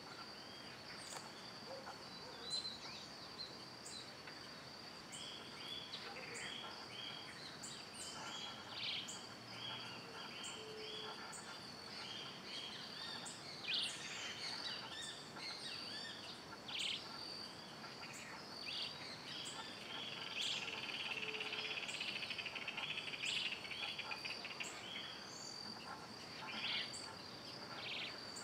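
Steady high-pitched insect drone with many short bird chirps and calls over it. About three quarters of the way in, a dense buzzing trill lasts a few seconds.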